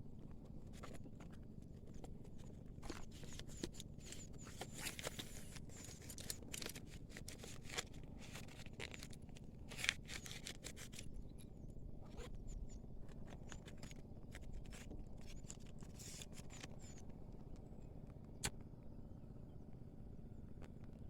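Scattered sharp clicks and short scraping sounds over a quiet outdoor background, thickest in the first half, with a few faint high chirps.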